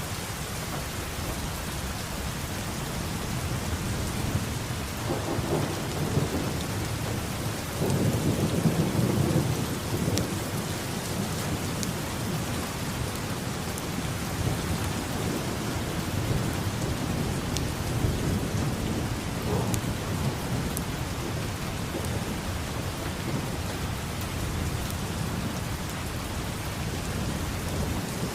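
Steady heavy rain with thunder rumbling low in the background, swelling and fading several times; the loudest roll comes about a third of the way through. A few sharp drop ticks stand out above the rain.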